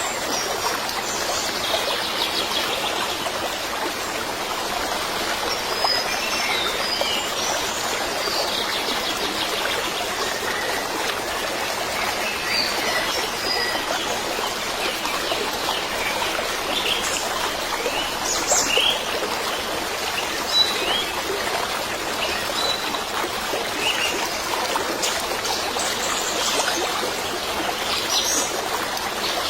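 Steady trickling stream with scattered short bird chirps.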